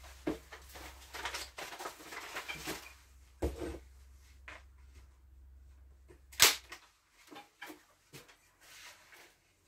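Paper rustling and crinkling as it is handled and pushed into the gaps between ceiling OSB boards, with scattered clicks and one sharp snap about six and a half seconds in, the loudest sound.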